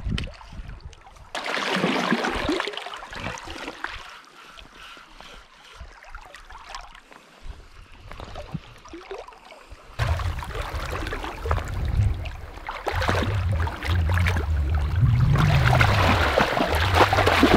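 Water splashing in a shallow river: a hooked steelhead splashes at the surface about two seconds in, and from about ten seconds wading boots splash through the shallows over a low rumble on the microphone.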